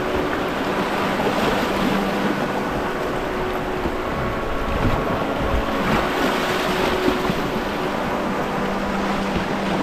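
Steady rush of water and wind noise on the microphone, out on open water.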